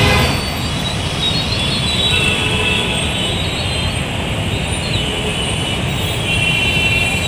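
Congested city road traffic: a steady low rumble of slow-moving cars, buses, auto-rickshaws and motorbikes, with thin high tones that come and go and are strongest near the end.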